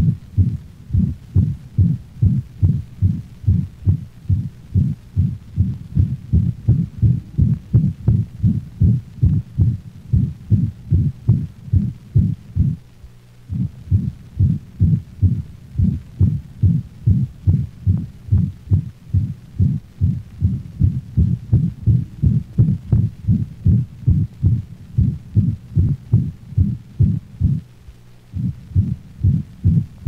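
A dog's heart heard through a stethoscope with mitral insufficiency: a loud holosystolic murmur so prolonged that it obliterates the second heart sound, so each beat sounds like one prolonged sound. The beats are regular, about two a second, and break off briefly twice.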